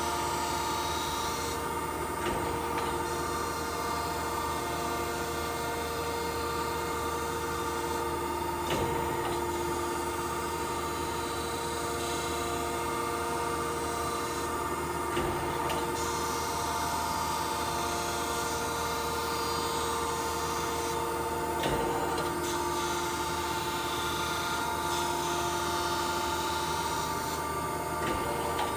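1992 Okamoto ACC-2040DX2 hydraulic surface grinder running in automatic mode: a steady hum from the spindle and hydraulics, with a short knock about every six to seven seconds as the reciprocating table reverses.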